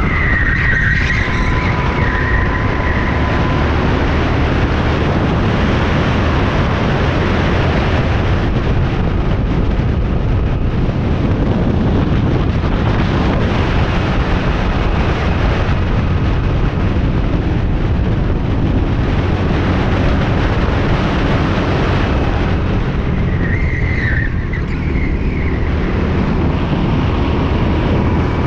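Go-kart engine running hard as the kart laps the track, heard from on board, with the kart's tyres squealing briefly through a corner about a second in and again about 24 seconds in.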